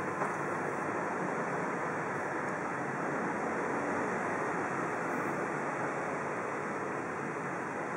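Steady, even background hiss with no speech or music, and one soft tap a fraction of a second in.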